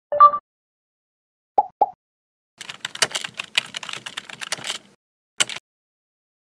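Computer keyboard typing sound effect: a quick run of key clicks lasting about two seconds, then one more click a little later. It opens with a short tone and two brief blips.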